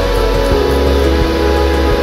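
Instrumental background music with guitar and a steady beat; the bass note changes about half a second in.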